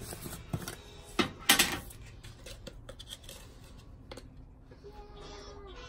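Plastic tub of shake powder being handled and opened, then a scoop dug into the powder: a sharp click at the start, two louder rustles about a second and a half in, then quieter scraping and small clicks.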